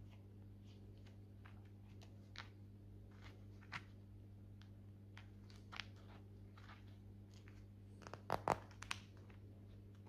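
Faint crinkling and clicking of gloved hands handling a needle against skin, with a quick cluster of louder clicks about eight seconds in, over a steady low hum.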